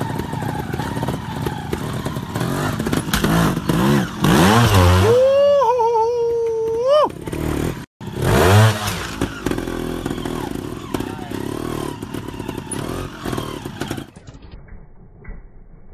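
Trials motorcycle engine blipped in sharp revs that rise and fall, held at a high steady pitch for about two seconds near the middle, with knocks from the tyres landing on concrete pipes. The sound breaks off for an instant about halfway.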